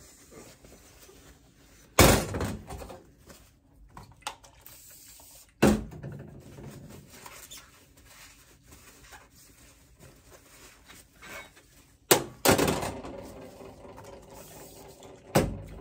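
Stainless steel mixing bowl being wiped down and set onto a stand mixer, giving about five sharp metallic knocks and clunks with a short ring after each, the loudest near the start and about two-thirds of the way in.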